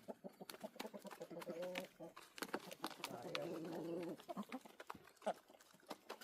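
Chickens calling: two low, drawn-out, wavering hen calls, the second longer, among scattered clicks and rustles.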